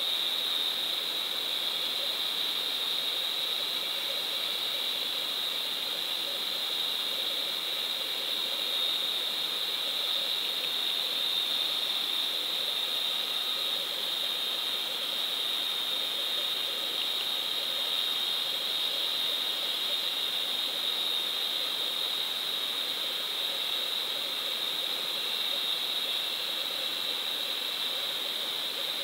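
Underwater sound picked up by a GoPro in its housing: a steady hiss with a constant high-pitched whine.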